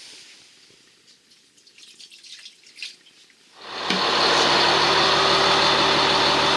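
Faint water dripping, then about three and a half seconds in a loud, steady rush of water gushing out of the motorhome's plumbing, with a steady hum under it, as the lines are drained for winterizing.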